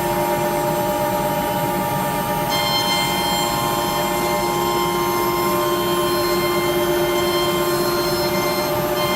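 CNC router spindle running with a steady, multi-toned whine.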